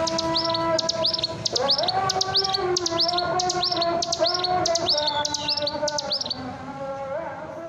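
A bird chirping in a rapid series of short, sharp, high notes, about three a second, that stop about six seconds in. Underneath are steady held tones that shift pitch now and then, and the sound fades toward the end.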